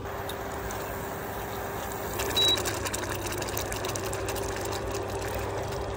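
Thick sweet fish sauce bubbling in a pan on the stove, with soft crackling pops over a steady low hum. A brief high beep sounds about two and a half seconds in.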